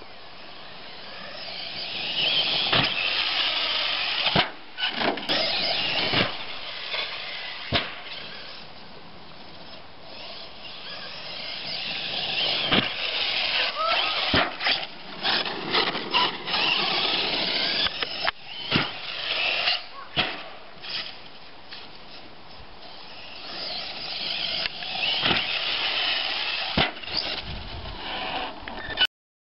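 A Team Losi LST2 monster truck's brushless electric motor, an 1800KV motor on a 5S LiPo, whines as the throttle is opened and let off in repeated surges. Sharp knocks come through it as the truck lands jumps and tumbles. The sound cuts off suddenly near the end.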